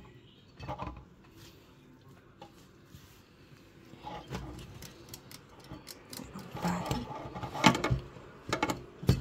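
Shredded wild garlic being stuffed and pressed by hand into a glass jar: irregular rustling with sharp knocks and clicks against the glass. It grows busier and louder in the last few seconds.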